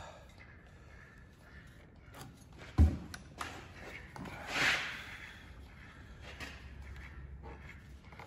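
Hands working over a chainsaw engine: faint scattered clicks and handling sounds, one sharp knock about three seconds in, and a short rushing hiss about a second and a half later.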